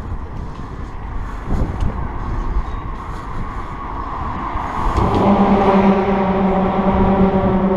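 Traffic crossing a lift bridge's open steel-grid road deck. A low rumble at first, then from about five seconds a loud, steady humming whine of tyres on the grating.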